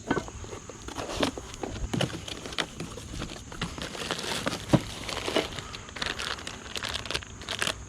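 Packing material crinkling and rustling as a box of bumper parts is rummaged through, with scattered light knocks and clicks from the parts being handled.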